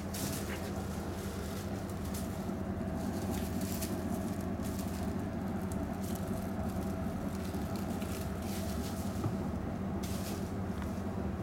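Kittens' paws pattering and tapping on a hardwood floor and stairs, with occasional light rustles, over a steady low hum.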